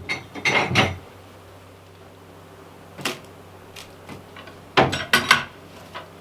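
A few sharp knocks and clatters: a cluster at the start, one about three seconds in and a quick run of several near five seconds, over a faint steady hum.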